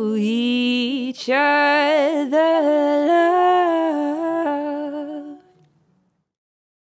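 A female vocal sings long held notes with no clear words, played back through the UAD LA-2A compressor plug-in. It has a brief break about a second in and stops about five and a half seconds in, followed by silence.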